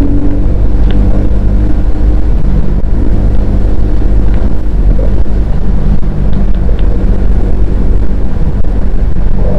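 Bajaj Pulsar N250's single-cylinder engine running steadily through its exhaust, its pitch shifting slightly a few times.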